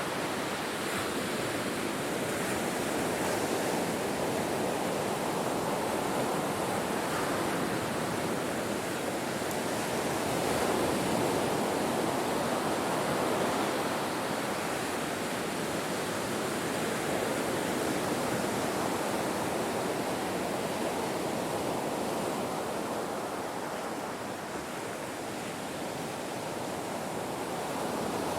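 Ocean waves washing onto a shore: a continuous rushing surf that swells and eases slowly. It dips to a lull about 24 seconds in and builds again near the end.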